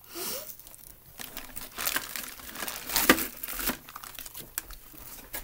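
Packaging being handled and unwrapped, crinkling and rustling in irregular bursts, with a sharper crackle about three seconds in.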